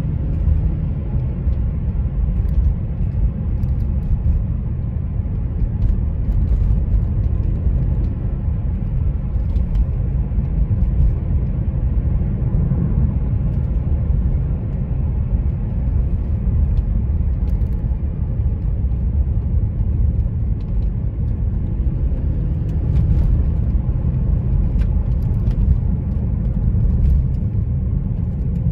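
Car driving at speed: a steady low rumble of tyres on the road and engine, with a few faint ticks now and then.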